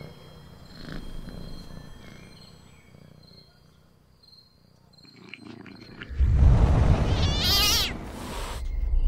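Cartoon sound effects: a cat purring softly, then a swelling magic-spell blast about six seconds in, loud, with a deep low end and a wavering, sparkly high shimmer.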